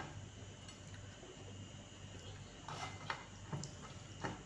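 Quiet eating noises: a few short, soft smacks and clicks of a mouth chewing and fingers picking grilled tilapia off a plate, mostly in the second half, over a faint steady hum.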